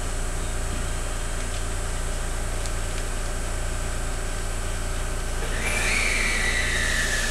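JR West 223 series electric train standing at the platform, humming steadily. About five and a half seconds in, a loud hiss starts together with a high whine that slowly falls in pitch.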